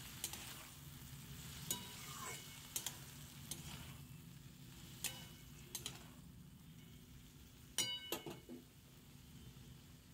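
Metal spatula stirring boiled chana dal and vegetables in a metal kadai over a faint frying sizzle, with scattered light clicks of the spatula against the pan. The loudest is a short ringing clatter of the spatula on the pan about eight seconds in.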